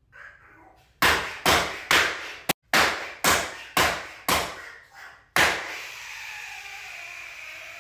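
A rapid series of about ten loud, sharp bangs, roughly two a second, each with a brief ringing tail. They are followed by a steady hiss with a faint tone.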